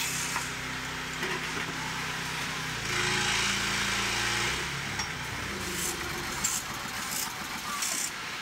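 Assembly-line machinery humming steadily, with a louder hiss of air lasting about a second and a half, about three seconds in, and several short, high air hisses near the end.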